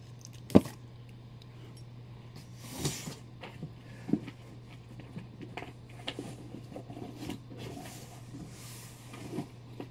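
Comic books being handled. A sharp tap about half a second in as a stack is set down, then faint paper rustling and light knocks.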